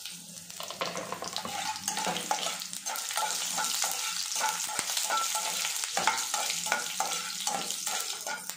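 Dried red chillies, a green chilli and cumin seeds frying in a little hot oil in a pan: a steady sizzle with crackling, the tempering stage of a chutney.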